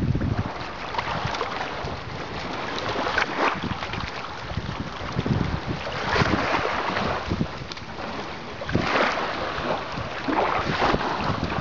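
Wind buffeting the microphone in gusts over the wash of small waves in shallow surf.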